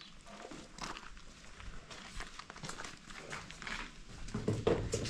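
Irregular rustling and light clicks, with a louder knock near the end.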